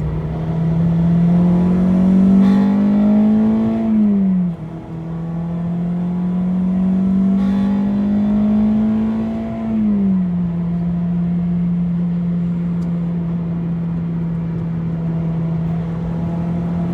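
Honda Civic EP3's K20A2 2.0-litre four-cylinder engine rising in pitch twice under acceleration, the pitch dropping sharply about four seconds in and falling again near ten seconds, then running at a steady pitch.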